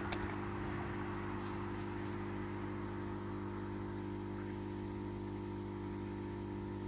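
Steady low machine hum of several held tones, with a few faint ticks in the first two seconds.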